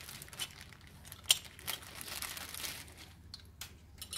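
Clear plastic packaging crinkling as small latch parts are handled, with a sharp click just over a second in.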